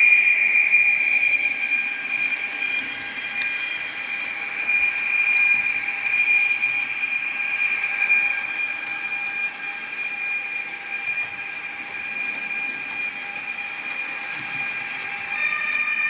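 Trix model locomotive (class 494) running with its sound decoder on, giving a steady high-pitched whine over a continuous running noise.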